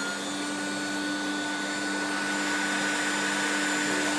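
Hoover Turbo Power 2 Autosense upright vacuum cleaner running steadily just after being switched on, its motor giving a constant whine over the rush of air.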